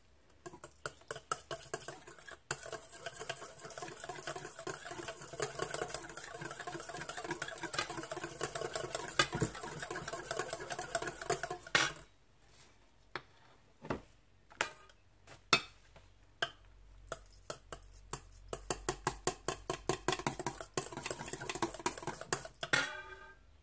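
Wire hand whisk beating a mousse base in a stainless-steel bowl. The wires rattle fast against the metal for about twelve seconds, then stop suddenly. After that come scattered taps, which turn into a quicker run of ticks near the end as the stirring picks up again.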